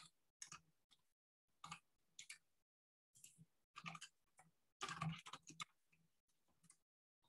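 Faint computer keyboard typing: short runs of keystrokes with gaps between them, the busiest run about five seconds in.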